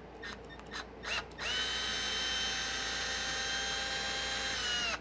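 Cordless drill running at a steady speed for about three and a half seconds, starting about a second and a half in; its whine dips slightly just as it stops. A few small handling clicks come before it.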